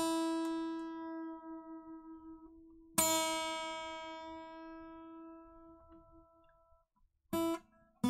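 Acoustic guitar string plucked and left to ring out, twice about three seconds apart, each note holding one steady pitch as it fades; a third pluck near the end is cut short. The string is being tuned with its tuning peg between plucks, showing how string tension sets its pitch.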